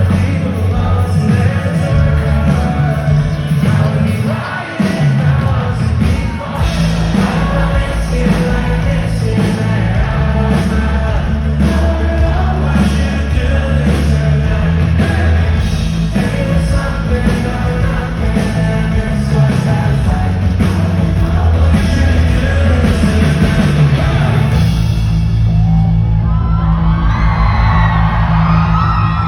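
Live rock band playing loudly, with sung vocals, in a large hall. Near the end, shrill whoops and screams from the audience rise over the music.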